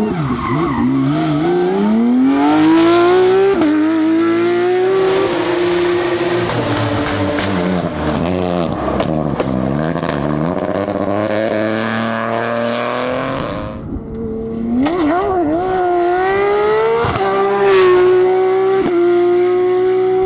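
Rally car engines at full throttle, revs climbing and stepping down at each gear change, with sharp pops and bangs among them. About two-thirds of the way in the sound dips and a second car takes over, revving hard up through its gears.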